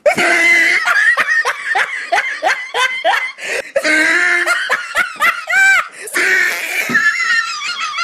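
Loud, high-pitched laughter in quick repeated peals, with a brief dip around six seconds in.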